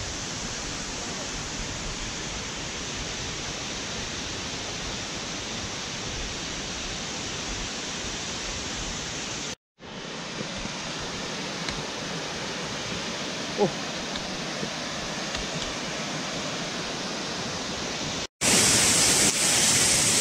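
Steady rushing of a mountain waterfall and stream. It cuts out for a moment twice and is louder for the last couple of seconds.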